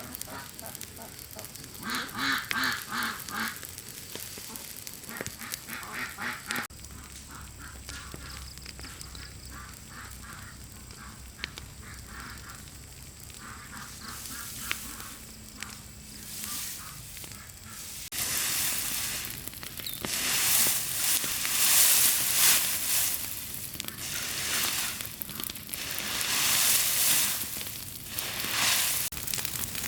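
Ducks quacking in quick runs of calls during the first third. From a little past the middle, a louder hissing noise swells and fades several times.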